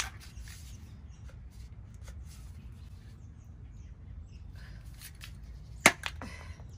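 Rust-Oleum Painter's Touch Ultra Matte spray-paint can being shaken, its mixing ball rattling in a few clicks in the last couple of seconds, one sharp click about six seconds in.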